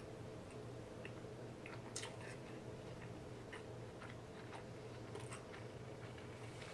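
Someone chewing a sandwich close to the microphone: a scattering of soft mouth clicks and smacks, over a faint steady hum.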